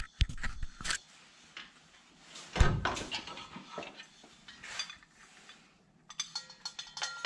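Clicks, knocks and light rattles of a metal lamp shade being handled and hung on a wall mount, with one heavier thump a little over two and a half seconds in and a brief metallic ringing near the end.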